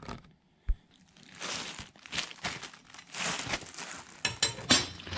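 Plastic packaging crinkling and rustling as an LS3 rocker arm pedestal rail is unwrapped and handled, with a single knock about a second in and a few light clinks near the end.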